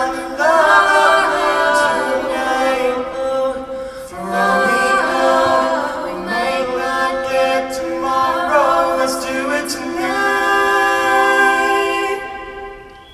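Mixed-voice show choir singing unaccompanied, in held, slow chords phrase by phrase; the final chord fades out near the end.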